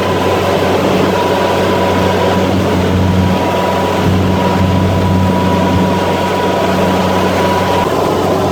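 Rice combine harvester running steadily: a low engine hum under a broad mechanical clatter, with a thin steady whine on top.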